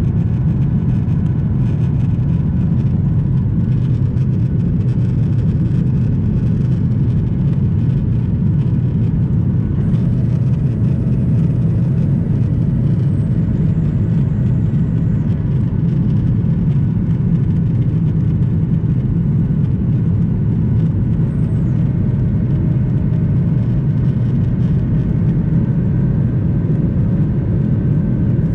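Steady drone of engine and airflow noise heard inside the cabin of a Boeing 737-900ER from a seat over the wing, its CFM56-7B turbofans at climb power shortly after takeoff.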